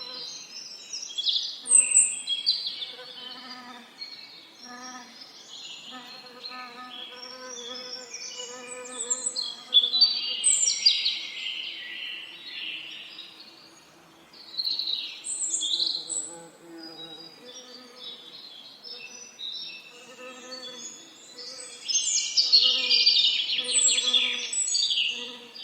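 Several songbirds singing and chirping in overlapping phrases, with louder bursts of song about 2 s, 10 s and 22 to 25 s in. Under the song, a bee's wing buzz comes and goes every second or two.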